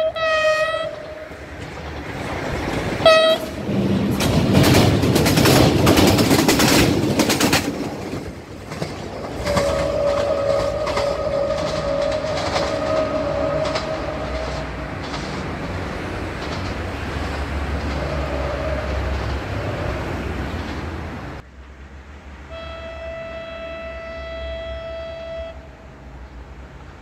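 Duewag 628 diesel railcar sounding its horn in short blasts, then clattering past over the rails, then giving a long horn blast of about five seconds and a shorter one. After a sudden cut, another diesel train's horn sounds once, steadily for about three seconds.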